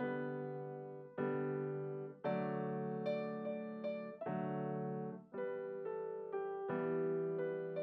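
Solo piano played on a red Nord stage keyboard: slow, held chords struck about once a second, each ringing out under a melody on top.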